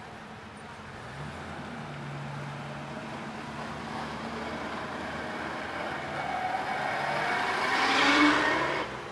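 Classic cars driving past one after another, their engines running at low speed. The sound grows louder as a car passes close by near the end, then cuts off abruptly.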